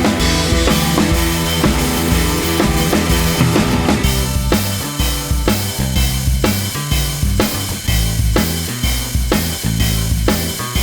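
Background music with a steady drum-kit beat and bass; the beat grows more prominent about four seconds in.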